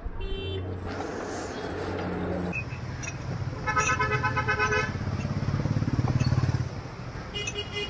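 Street traffic: a motor vehicle engine rumbling under three vehicle horn toots, a short one at the start, a longer one of about a second near the middle, and another near the end.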